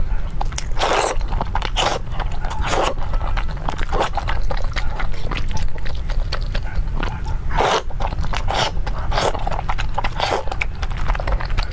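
Close-miked eating of wide flat noodles in sauce: wet slurps and mouth smacks come in short bursts every second or so, between spells of chewing.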